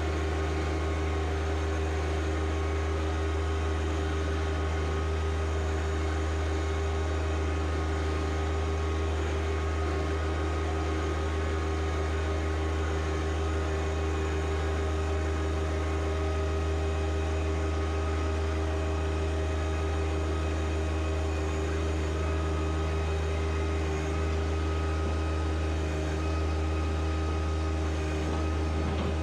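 John Deere 1025R compact tractor's three-cylinder diesel engine running steadily at a constant speed, with no revving.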